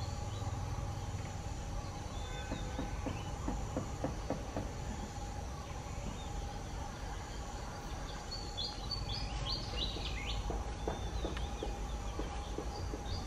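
Outdoor ambience: a steady low rumble under a steady insect drone, with a quick run of short high chirps about nine to ten seconds in.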